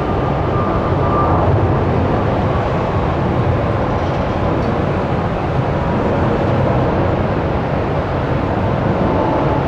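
Boeing 777-300ER's GE90-115B turbofan engines running, a loud steady rumble.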